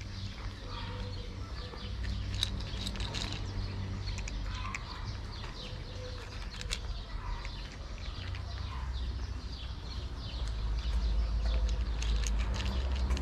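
A cat crunching dry kibble, a run of small irregular crunches and clicks, over a low rumble that grows louder near the end.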